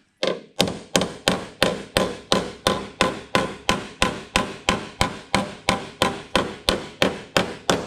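Body hammer tapping the dented lower edge of a Toyota Land Cruiser's steel side panel, a steady run of light, evenly spaced taps at about four a second, each with a short metallic ring. Hand pressure on the panel pushes the raised edge back into line.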